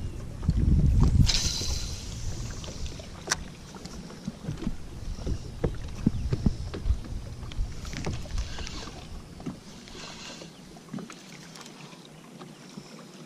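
Wind buffeting the microphone and water lapping against a small fishing boat, with scattered light clicks and taps. The rumble is strongest in the first couple of seconds and dies down near the end.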